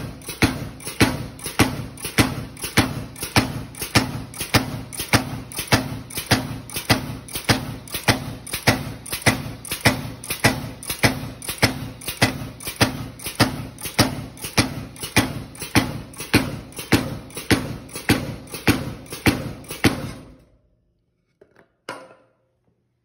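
Homemade pneumatic power hammer running, its ram striking a wooden stick on the anvil in an even beat of about two blows a second. It runs slow and short of force because the air from a hose reel starves it of pressure. It stops about twenty seconds in, leaving a couple of faint knocks.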